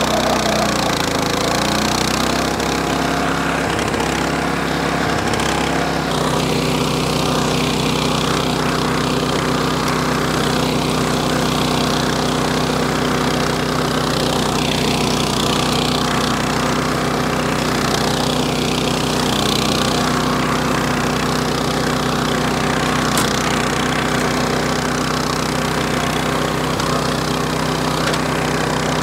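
Walk-behind flail mower's 8.5 hp engine running steadily under load as its flail shaft cuts through tall grass. The engine note changes about six seconds in, then holds even.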